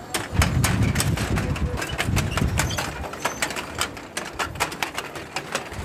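Row of metal Tibetan prayer wheels being spun by hand in turn, clicking and clacking rapidly and irregularly as they rotate on their spindles, with a low rumbling during the first three seconds.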